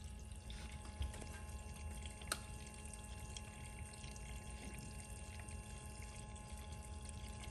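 Electric water pump of a turbocharged BMW running on after the engine is switched off, a faint steady hum with coolant flowing through the hoses: the after-run that keeps circulating coolant through the turbocharger to cool it. A couple of small ticks sound in the first few seconds.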